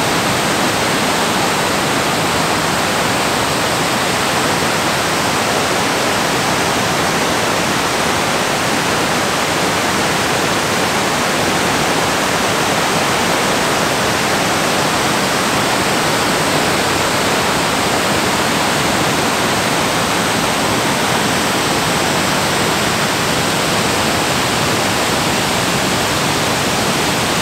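River rapids and a waterfall rushing over rock: a steady, even rush of white water.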